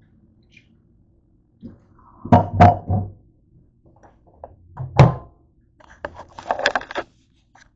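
Dull thunks and knocks in a kitchen: three quick loud ones about two and a half seconds in and a single loud one about five seconds in. These are followed by a short burst of rattling handling noise as the camera on the counter is picked up and moved.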